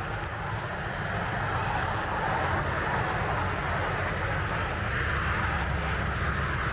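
Wind blowing across the microphone outdoors: a steady low rumble with a hiss above it, picking up slightly about two seconds in.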